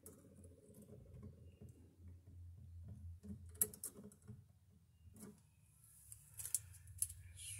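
Faint clicks and ticks of a neon circuit tester's probes and copper wires being handled at an outlet box, a few scattered taps over a low steady hum.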